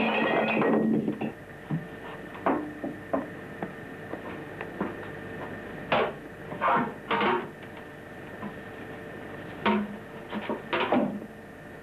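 Glass jars knocking and clinking against each other and a metal tray as a shoe moves among them: scattered single knocks, each with a short ring, after a denser clatter that stops about a second in.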